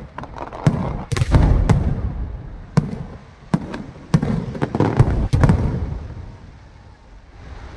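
Aerial fireworks bursting overhead: a rapid series of sharp bangs and low rumbling booms, thinning out near the end.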